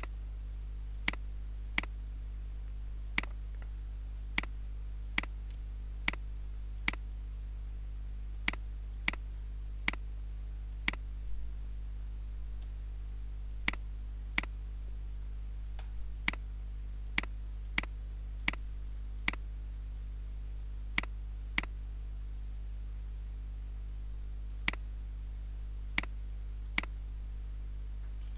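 Computer mouse button clicks: about two dozen single sharp clicks at irregular intervals, often a second or two apart, as points and curves are placed in pattern-drafting software. A steady low hum runs underneath.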